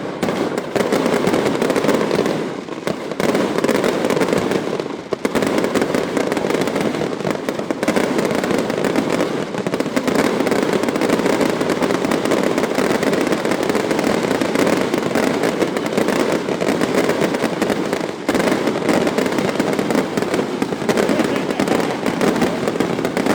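Fireworks going off in a loud, dense, continuous crackle, thinning briefly twice in the first few seconds.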